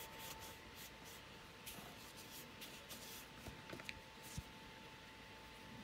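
Faint rubbing of a moist towelette wiped in short strokes over a GoPro's screen, followed by a few small knocks about three to four seconds in, over a faint steady tone.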